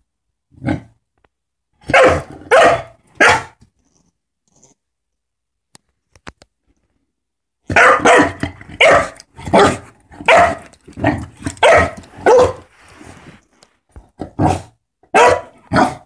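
A puppy barking in play at a small toy robot. There is one bark, then three quick ones, a pause, then a fast run of about nine barks, and three more near the end.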